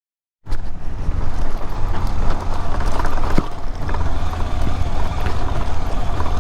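KTM 250 Adventure single-cylinder motorcycle being ridden, its engine rumbling under loud wind noise, with a few sharp knocks from the rough road. The sound cuts in abruptly after half a second of silence.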